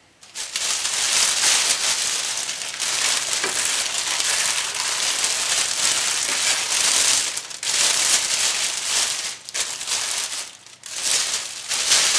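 Plastic oven cooking bag crinkling and rustling as it is handled with chuck roast being worked down inside it. The crinkling runs almost without a break, with a few short pauses in the second half.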